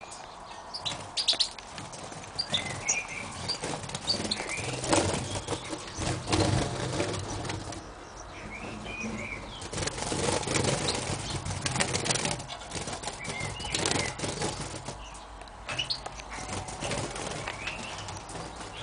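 European goldfinches (jilgueros) in breeding cages fluttering and flapping their wings, in short irregular bursts, with brief high chirping calls scattered between them.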